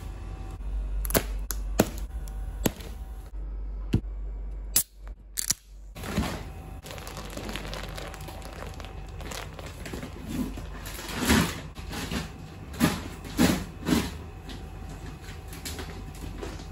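Plastic wrapping on a rolled mattress topper crinkling and crackling in several short bursts as it is handled and pulled open. A few sharp knocks come in the first few seconds.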